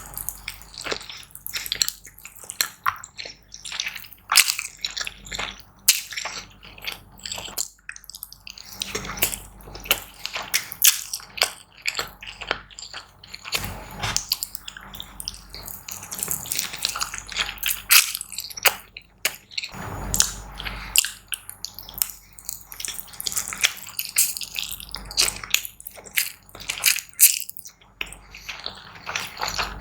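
Close-miked eating sounds: wet chewing and mouth smacks, a dense run of quick irregular clicks and squelches.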